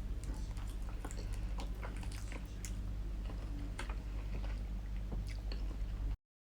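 A person chewing and biting sticky chicken feet adobo close to the microphone, with many small wet clicks and smacks. The sound cuts off suddenly near the end.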